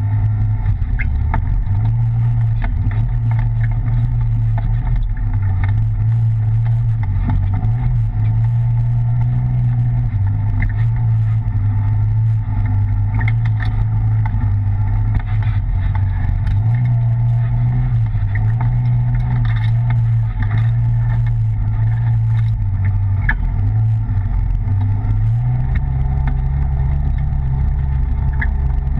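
Side-by-side UTV engine running as it is driven slowly over a rough dirt trail, heard from inside the open cab: a steady low drone that rises and falls with the throttle, with scattered small clicks and rattles. About 25 seconds in, the engine note changes and stays that way.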